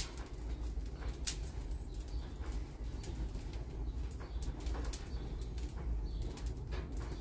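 Wood fire burning in a pit bread oven (tanoor) as it is heated for baking: a steady low rumble of flames with frequent small crackles and pops.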